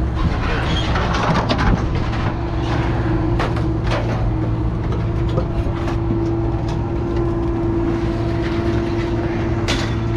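An engine running steadily, with scattered clanks and clatters of scrap metal being handled and thrown. A sharper metal knock comes near the end.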